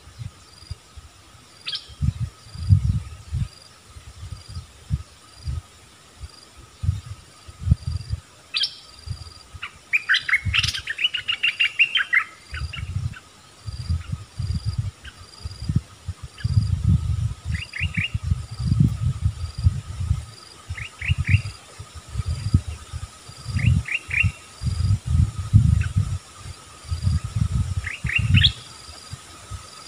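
Bulbuls calling: a quick run of chirping song about ten seconds in, then brief groups of three quick falling notes every few seconds. Irregular low rumbles come and go throughout and are louder than the birds. A faint steady insect drone sits underneath.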